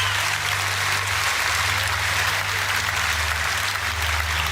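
Conference hall audience applauding steadily.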